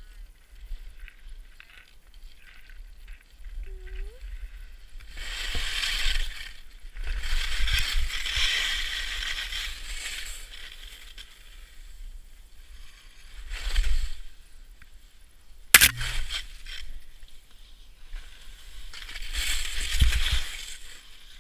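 Skis scraping and skidding over hard, icy snow through a run of turns, in four long swells of scraping noise with a low wind rumble on the microphone. A single sharp clack comes a little past the middle.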